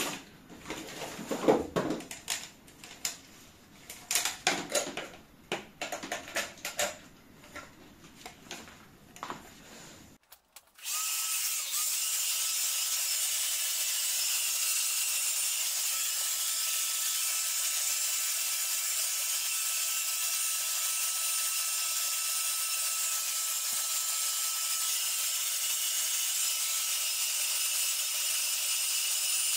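Handheld hair dryer switched on about ten seconds in, then blowing steadily: a strong airy hiss over a motor whine. Before it, scattered knocks and rustles.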